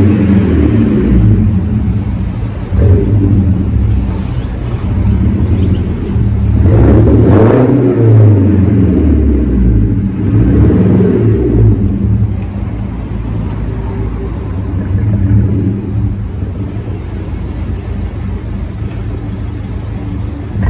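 BMW E82 120i coupe with a sport exhaust, its four-cylinder petrol engine running and revved in several rising and falling surges as the car drives slowly through a concrete multi-storey car park.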